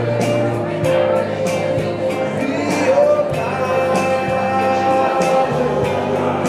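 A band playing a song: a singing voice over a bass line, guitar and regular cymbal strokes.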